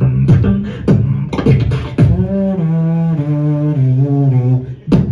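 Beatboxing through a club PA: about two seconds of sharp kick and snare hits, then a held, pitched vocal bass line that steps down in pitch, with the hits coming back near the end.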